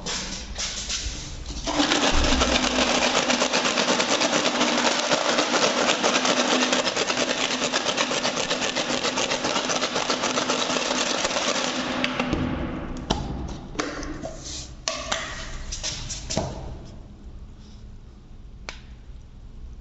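Rusty metal hand tools rattling fast inside a closed container of rust-remover liquid as it is shaken hard for about ten seconds, to knock the rust loose. The rattle dies away, and a few separate knocks follow as the container is handled.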